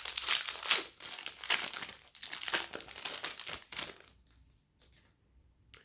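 Plastic wrapper of a hockey card pack crinkling and tearing as the pack is opened. The crackling stops about four seconds in, leaving only faint handling sounds.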